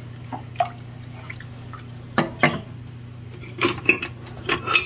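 A wooden spatula knocking and clinking against a stainless steel saucepan of rice and water, with light watery sounds, in a few short clusters. A steady low hum runs underneath.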